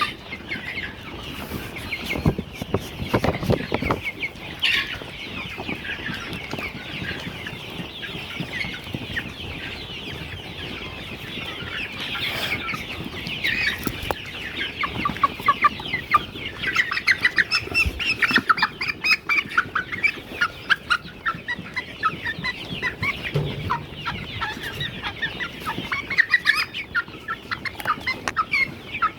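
A flock of eight-week-old layer chickens clucking and chirping all the time, busier in the second half, with a few dull knocks.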